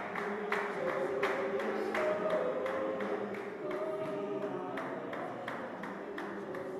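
A church congregation singing a hymn a cappella, with held notes from many voices, over steady rhythmic hand clapping.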